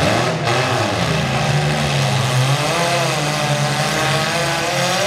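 Four-cylinder demolition derby car engines revving hard, their pitch rising and falling as the cars push and ram each other.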